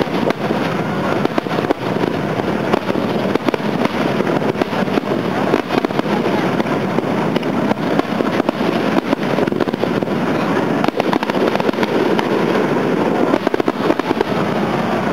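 Aerial fireworks going off in a dense, unbroken barrage: many rapid bangs and crackles overlapping.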